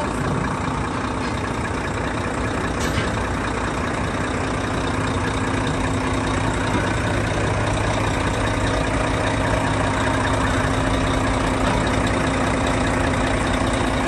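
Heavy diesel engine idling steadily, a continuous low hum that gets a little louder about halfway through.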